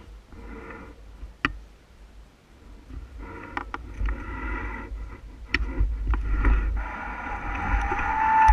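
Bicycle ride noise: wind buffeting the microphone, with rattling and a few sharp clicks from the bike, and a steady whine starting near the end.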